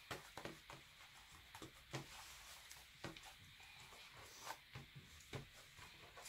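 Faint, irregular soft clicks and squishes of sticky homemade shaving-foam clay slime being kneaded and pressed against a tabletop by hand.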